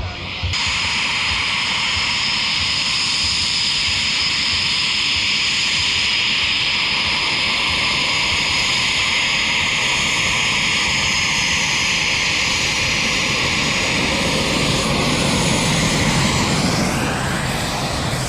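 Jet engine running: a steady loud roar with a high turbine whine over it, the pitch bending about three seconds before the end as the jet moves.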